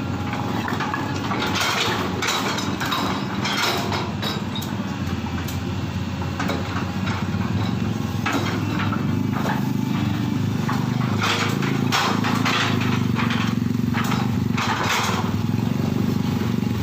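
Excavator's diesel engine running steadily under load, with irregular metallic clanks and scraping from the machine at work.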